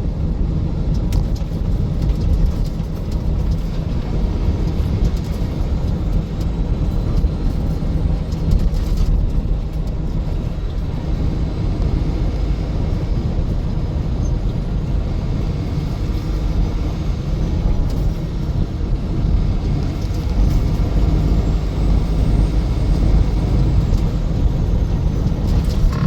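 Steady road and engine noise heard from inside a vehicle cruising on the highway: an even low rumble of tyres and engine with no sudden events.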